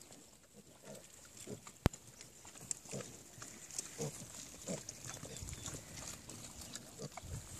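Piglets giving short grunts now and then as they root and forage in the dirt, with a single sharp click just under two seconds in.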